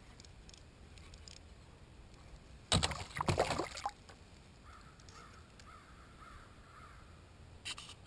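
A hooked sunfish thrashing and splashing at the water's surface on the line, a ragged burst of splashes lasting about a second, a few seconds in.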